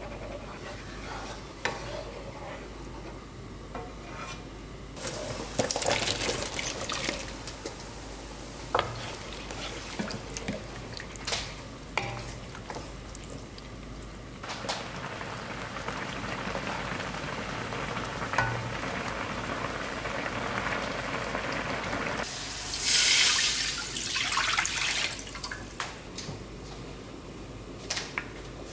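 A wooden spoon stirring simmering tteokbokki sauce in a nonstick wok: wet stirring, with scattered taps and scrapes of the spoon against the pan. A steady bubbling hiss runs through the middle, and there are two louder noisy spells, about a fifth of the way in and again past two-thirds.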